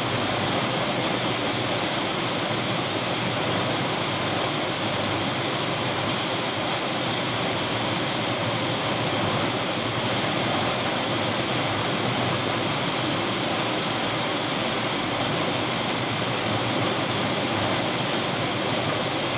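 Steady rushing noise of a tropical storm: wind and rough, whitecapped sea.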